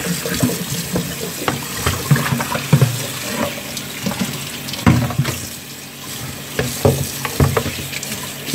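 Kitchen tap running onto a plucked whole chicken in a plastic basin in a steel sink, with irregular splashes and knocks as hands rub and turn the bird to rinse off the salt.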